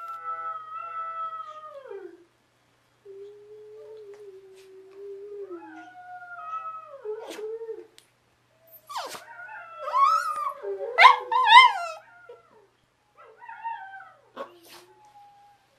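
Two dogs howling together: a small dog howls along with another dog in long wavering howls that slide down in pitch. The howls break off briefly twice, and about two-thirds of the way through come the loudest, higher howls, rising and falling.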